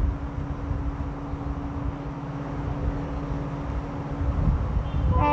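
EMD WDP4 diesel locomotive's two-stroke engine running under load as it approaches hauling a full passenger train alone: a low rumble with a steady drone. Its horn starts sounding near the end.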